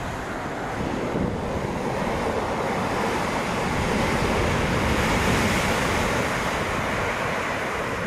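Heavy post-typhoon surf breaking and washing against a concrete seawall, swelling to its loudest about halfway through. Wind buffets the microphone.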